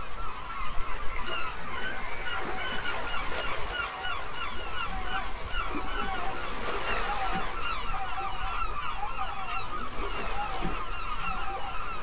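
A flock of gulls calling continuously, many short overlapping calls in a busy chorus.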